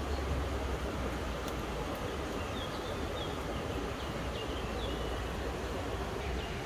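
Steady rushing of a river, with a bird chirping repeatedly from about two and a half seconds in.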